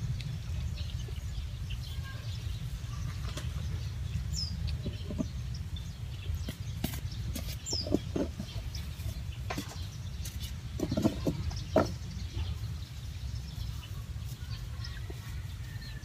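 Outdoor farm ambience: a steady low rumble with a few short bird chirps and occasional scattered clicks and knocks.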